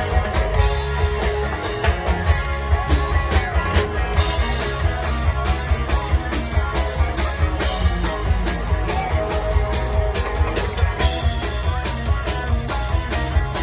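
A live rock band playing: electric guitars, bass guitar and a drum kit keep up a steady beat.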